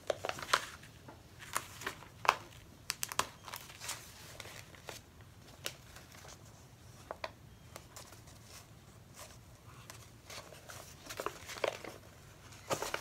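Folded sheets of paper rustling and crinkling as a book signature is handled, laid down and opened. There are many short, irregular rustles, busiest in the first few seconds and again near the end.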